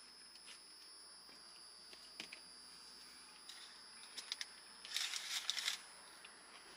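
Faint rustling and crinkling of a paper takeout liner as a plastic fork digs in to spear a boneless chicken wing, loudest for under a second about five seconds in, with a few small clicks before it.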